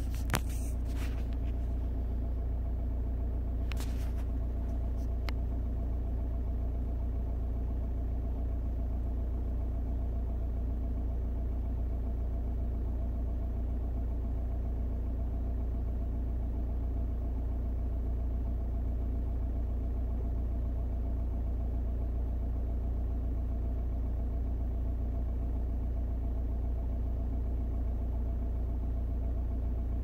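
Audi A4 B6's 1.9 TDI PD130 four-cylinder diesel idling, heard from inside the cabin: a steady low rumble that holds even throughout, with a few light clicks in the first few seconds.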